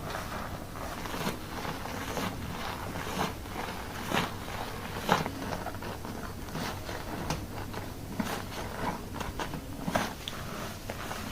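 Hands scrubbing and massaging hair during a shampoo, close up: a steady crackling with a stronger scrubbing stroke about once a second.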